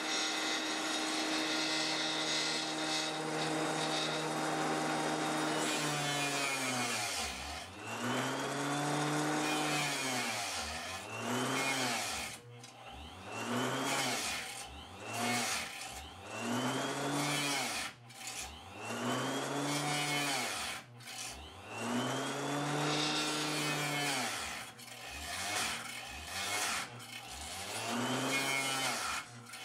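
Harbor Freight 4-inch Mighty-Mite table saw's small motor and diamond blade cutting a 1/16-inch FR4 circuit board. A steady hum for the first six seconds, then the motor's pitch sags sharply and recovers again and again over the hiss of the cut as the board is pushed into the blade. The motor is bogging down: the saw is underpowered for the board.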